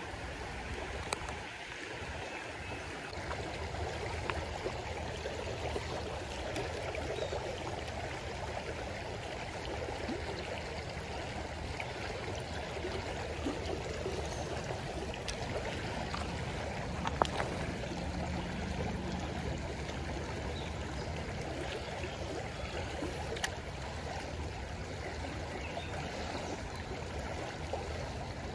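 Shallow creek water running steadily over a rocky riffle, with a few brief faint clicks.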